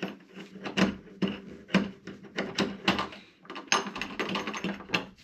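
Irregular clicks and light metallic taps, a few a second, from a screwdriver working the screws out of an old door lock and its hardware.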